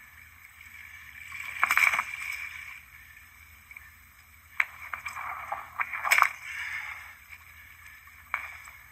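Water splashing and sloshing beside a kayak as a paddle beats the surface where a hammerhead shark thrashes. There are two louder bouts, about two seconds in and again from about four and a half to six and a half seconds, with a few sharp slaps.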